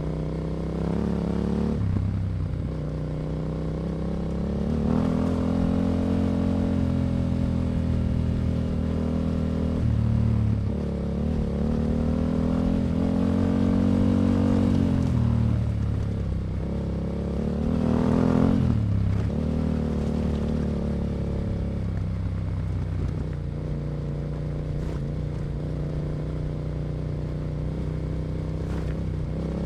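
Yamaha Ténéré 700's 689 cc parallel-twin engine through an Akrapovic exhaust, ridden on the move: the revs rise and fall several times, with a quick sharp rev about 18 seconds in, then settle lower and steadier.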